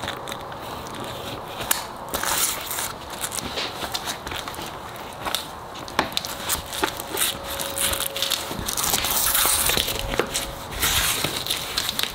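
Fabric rustling and Velcro crackling as hands press and tuck the edge of a Ford Bronco soft top down along the door frame, with scattered small clicks. The noise gets louder about nine to eleven seconds in.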